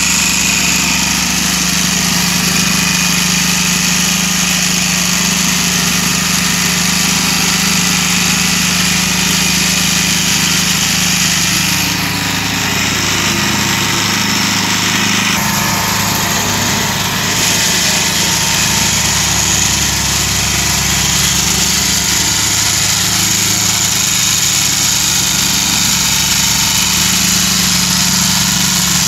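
Engine-driven vibratory plate compactor running steadily at working speed, vibrating as it is pushed over freshly laid interlocking paver blocks to compact them.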